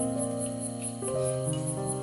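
Background music of sustained keyboard chords that change about once a second, over faint, even insect chirping repeating several times a second.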